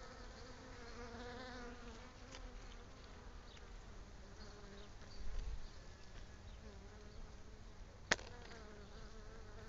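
A swarm of honeybees clustered on a branch, buzzing: a faint hum of many wings whose pitch wavers. There is a single sharp click a little after eight seconds.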